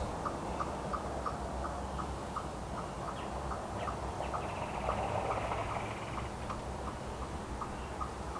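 An animal's call repeated as short, even notes about three a second, keeping a steady beat, over a low rumble of wind.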